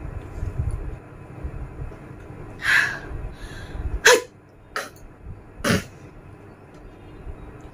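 A woman's short, sharp sneeze-like bursts through the nose and throat while she tries to force a sneeze: one breathy burst a few seconds in, then three quick sharp ones about a second apart, the first of them the loudest.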